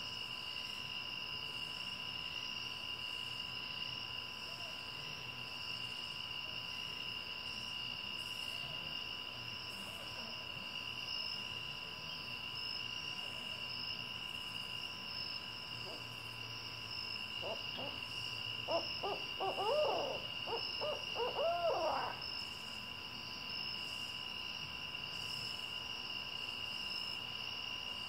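A burst of rapid, wavering owl hoots and cackling calls about two-thirds of the way in, over a steady chorus of night insects.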